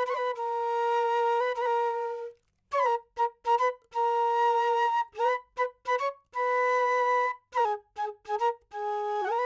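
Background music: a solo flute melody of long held notes broken by runs of quick short notes, with a brief pause about two and a half seconds in.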